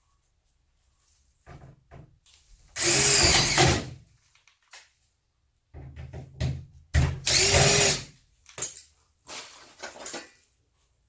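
Cordless drill-driver working into a steel reinforcing plate on a sandwich-panel bathroom wall. The motor runs in several short bursts, with two long, loud runs of about a second each, roughly four seconds apart.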